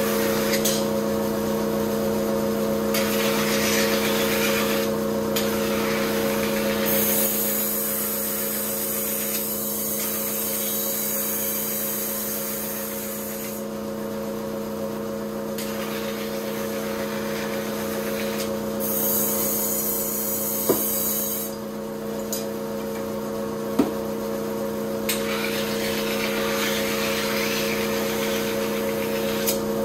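Kitchen knife being sharpened on a motor-driven rotating whetstone: a steady motor hum under a grinding hiss from the blade on the stone. The hiss swells and fades as the blade is worked, turning sharply brighter for a few seconds twice, with a couple of light clicks.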